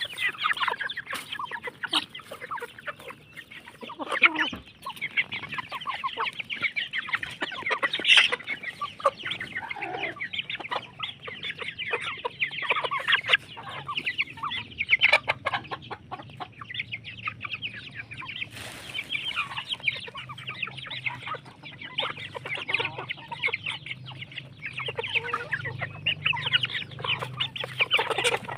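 A flock of Indonesian free-range village chickens (ayam kampung) clucking continuously, many birds calling over each other with a few louder calls standing out.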